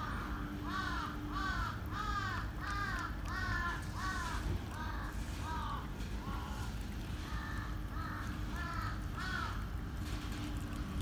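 A crow cawing in a long run of about fifteen caws, roughly two a second, that stops near the end.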